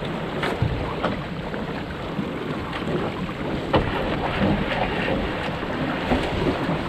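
Wind buffeting the microphone and water rushing against the hull of a National 18 sailing dinghy under way, with scattered sharp knocks and clicks from on board.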